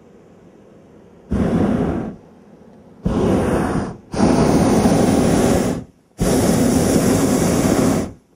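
Hot air balloon propane burner fired in four blasts of steady roaring noise, each about one to two seconds long, the last two the longest, heating the air in the envelope.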